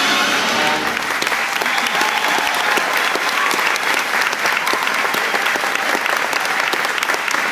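Audience applauding, loud and sustained, as the last note of the music dies away about a second in.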